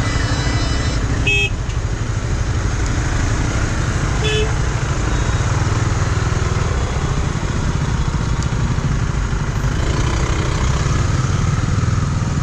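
KTM 250 Duke's single-cylinder engine running steadily as the bike rides slowly through traffic. Vehicle horns toot briefly a few times in the first five seconds.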